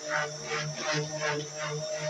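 Background music with a steady beat and held low notes.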